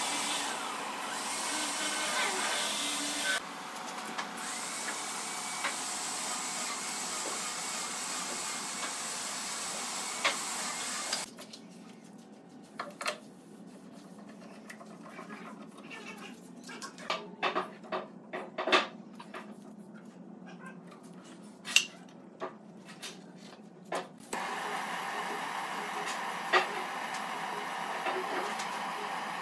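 Handheld butane torch hissing steadily as it heats bent wooden slats. About eleven seconds in the hiss stops, giving way to scattered clicks and knocks of F-clamps being tightened and wood being handled, and near the end the torch hiss starts again.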